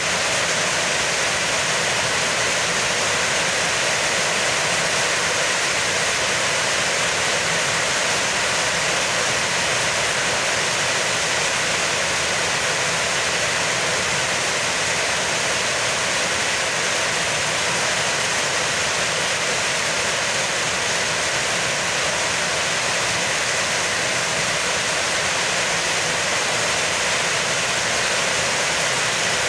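Heavy rain falling steadily, an even unbroken hiss of downpour.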